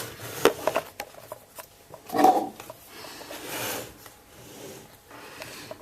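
Handling noises: rubbing and scraping with scattered clicks and knocks as things are moved about, with a louder moment about two seconds in.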